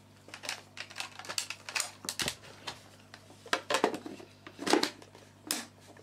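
Irregular clicks and knocks of hard plastic as the filter and clear dust bin of a Hoover handheld BrushVac are handled and fitted back together.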